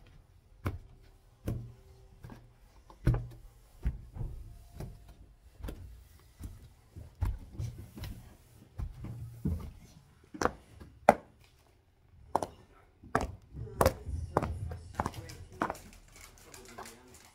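Footsteps of stiletto-heeled patent pumps on carpet and carpeted stairs: irregular muffled thuds at a walking pace, growing sharper and more clicking in the second half.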